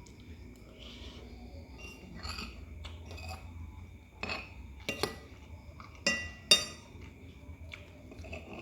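Cutlery clinking against a plate during eating: four sharp, ringing clinks in the second half, the last the loudest.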